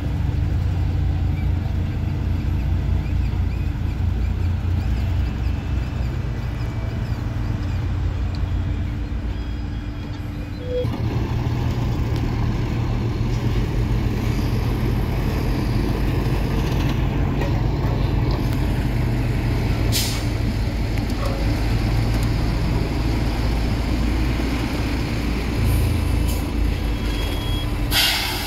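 Diesel engines of heavy road-construction machinery running under load with a deep, steady rumble. The sound grows fuller and noisier about eleven seconds in, and a short burst of hiss comes near the end.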